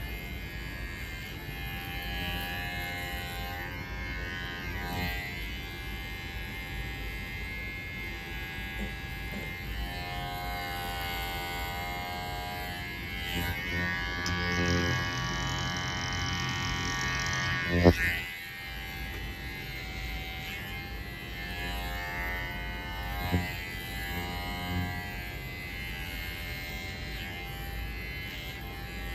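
Electric hair clipper running on a nape shave, a steady buzz whose pitch shifts as it works through the hair. The buzz grows louder and hissier for a few seconds before one sharp click about two-thirds of the way through.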